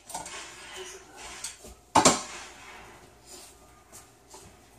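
Kitchenware clattering on a counter: one sharp clank about two seconds in, with a few lighter knocks and handling noises around it.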